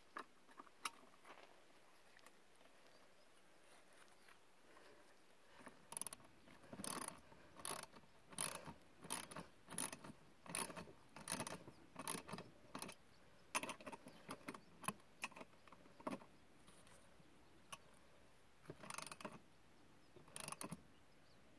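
Ratchet wrench clicking in quick strokes as it tightens a hose clamp on poly hose over a barbed fitting. The clicking starts about six seconds in, runs for about ten seconds, pauses, then comes twice more near the end.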